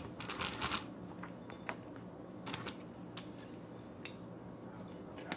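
Plastic soda bottle being handled and drunk from. A short rustle comes near the start, then scattered light clicks and crinkles of the plastic.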